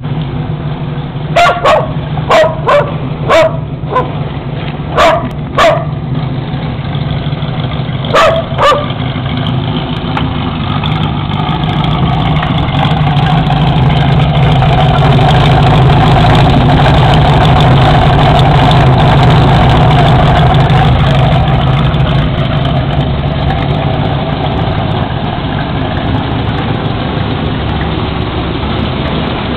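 Engines of a Ford Maverick GT and a Puma GTB rumbling at idle in a steady low note, swelling louder through the middle and easing back. A dog barks about ten times in the first nine seconds, louder than the engines.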